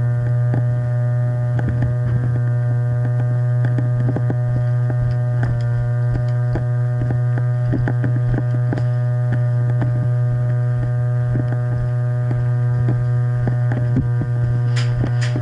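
A loud, steady electrical hum with a stack of overtones, constant throughout, as from interference in the camera's own recording. Under it, faint irregular knocks and scuffs of footsteps and gear, with a few sharp clicks near the end.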